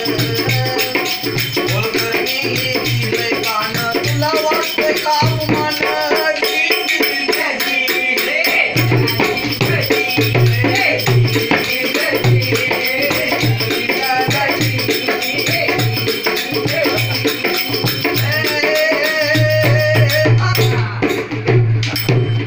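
Powada folk music: a hand drum beating a steady rhythm under continuous jingling percussion, with a voice wavering above it. The jingling thins out near the end.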